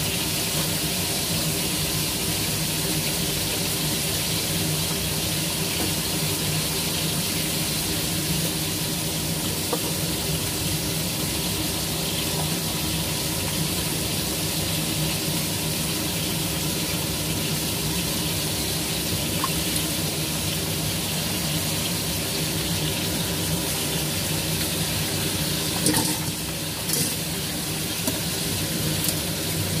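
Fish frying in hot oil in a pan, a steady sizzle, over the steady hum of a kitchen range hood fan. A couple of light knocks near the end.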